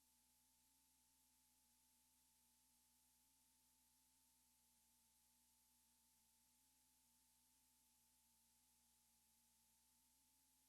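Near silence: a faint hiss with two faint steady hum tones.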